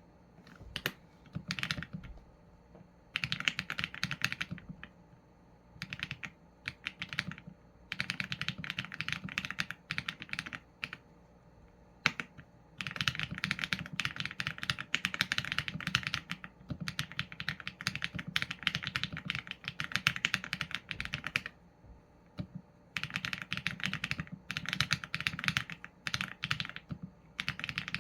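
Typing on a Qsenn A75 mechanical keyboard with Leobog Graywood v4 linear switches and PBT keycaps: runs of rapid keystrokes broken by short pauses every few seconds.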